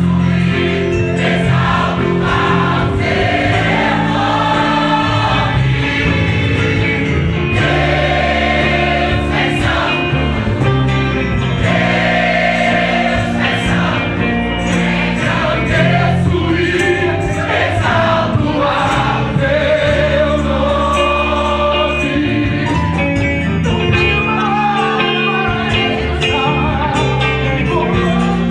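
A large mixed choir singing a gospel song in long held notes, with a man leading on a microphone.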